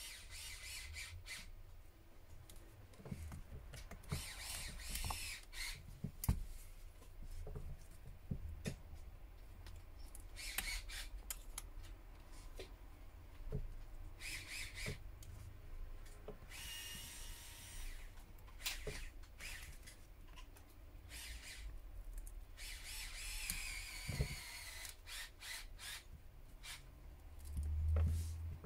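A thin opening tool scraping along the seam of an HTC U Play's glued back cover, cutting through the adhesive: repeated scratchy strokes a second or two long, with small clicks between them. A low handling bump near the end.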